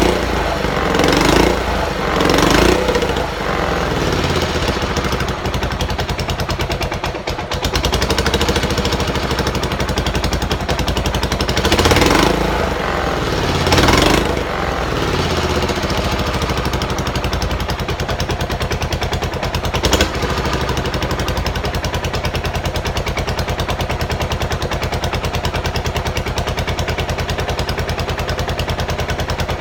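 Buell Blast's 492 cc single-cylinder motorcycle engine running after being started on a shot of starting fluid, its automatic choke not working: a few throttle blips in the first three seconds and two more around the middle, then a steady idle. One sharp knock about two-thirds of the way through.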